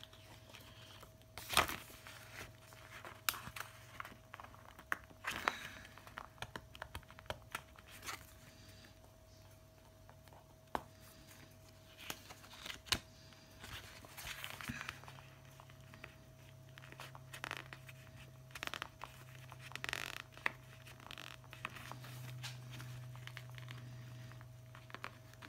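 Fingernail picking and scratching at a planner sticker to lift it off the paper page, with soft crinkling and scattered small ticks and taps. A faint steady hum runs underneath.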